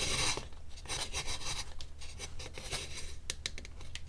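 Leather lace pulled through a drilled hole in a dried gourd's rim and rubbing against the hard shell: a brief rasp at the start, then small scratchy clicks and rustles as fingers work the lace snug.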